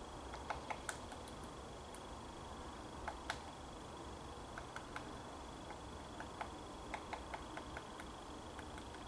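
A distant great spotted woodpecker: scattered sharp ticks, single and in quick clusters, at irregular intervals. Under them run a faint steady high whine and a low rumble.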